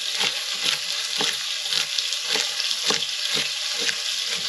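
Chef's knife rocking through diced carrots on a wooden chopping board, knocking about two to three times a second, over the steady sizzle of venison pieces browning in a frying pan.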